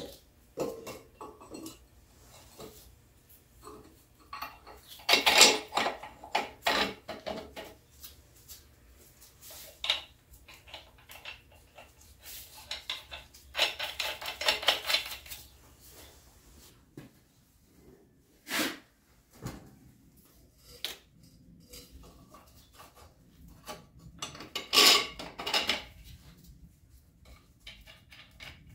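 Steel parts clinking and clanking as a lower control arm is fitted into an axle bracket. The sound comes in three bursts of rapid metallic clatter, with single knocks and quiet pauses between them.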